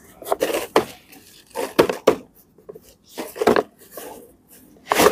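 Repotting handling noise: hands, soil and a soft plastic pot and sack making a series of short scraping, rustling bursts about a second apart.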